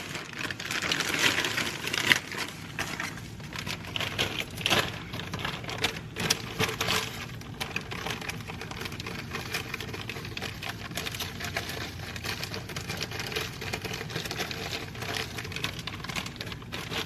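Brown sugar being measured out by hand: irregular scraping, tapping and rustling as it is scooped, packed into a measuring cup and poured.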